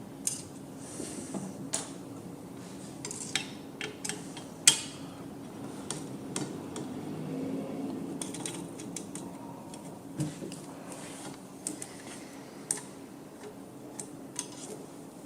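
Scattered sharp metallic clicks and taps of an Allen key working small locking screws loose on a steering sensor's mounting, over a faint steady hum.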